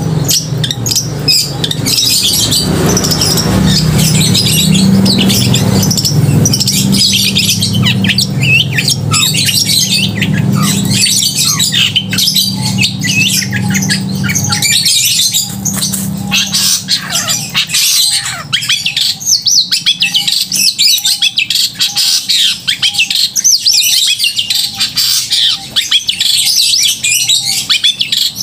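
Long-tailed shrike (cendet) singing without pause, a loud, fast run of high, varied chirps and harsh squawky notes. A low steady hum lies under the first half, and in the second half a lower note repeats about once a second.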